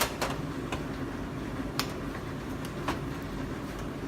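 Scattered sharp clicks and taps of kitchen items being handled, about five over a few seconds, the loudest at the very start, over a steady low hum.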